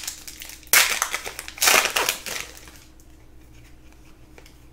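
Card pack wrapper crinkling in two loud bursts about a second apart, then little more than faint hiss.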